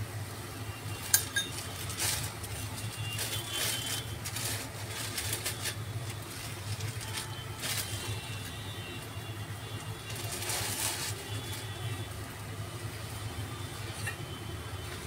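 Corn-and-chicken filling steaming under a steel lid over a low gas flame: a faint sizzle that comes and goes in soft hissy waves over a steady low hum, with one sharp click about a second in.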